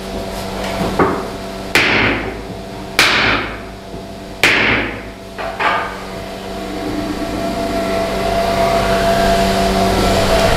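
Hammer blows during the assembly of small infantry shovels (entrenching tools): five sharp strikes about a second or so apart, each with a short ringing decay. After that a steady mechanical hum grows louder toward the end.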